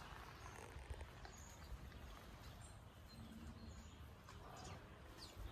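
Near silence: faint outdoor ambience with a low rumble, and small birds chirping faintly now and then, with short high chirps and a few quick falling calls.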